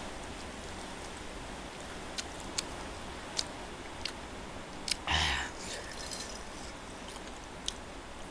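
A person chewing a mouthful of spicy Korean noodles close to the microphone: scattered soft mouth clicks and smacks over a steady hiss, with one louder, longer rushing sound about five seconds in.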